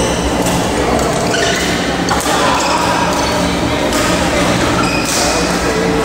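Echoing noise of a busy indoor badminton hall: players' voices chattering in the background, with a few sharp hits of play from the courts.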